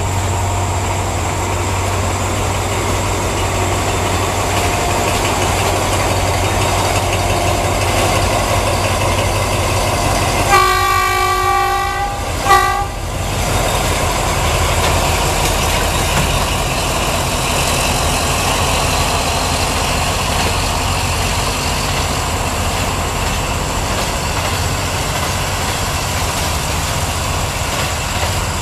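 Alsthom diesel-electric locomotive running as it hauls a train past, a steady drone with the wagons rolling by. About ten seconds in a train horn sounds one long blast, then a short one.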